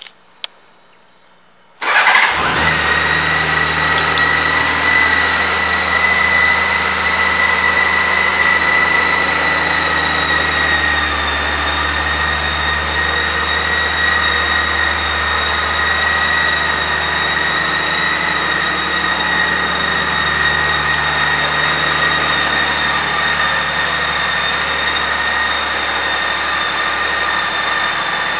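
2008 Honda Gold Wing's flat-six engine started about two seconds in, catching at once and then idling steadily, with a steady high whine over the low engine note. The idle eases slightly lower about ten seconds in.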